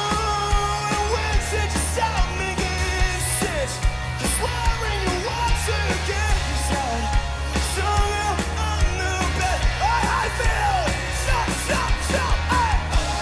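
Live rock band playing at full volume: electric guitars, bass and drums, with a sung lead vocal over it.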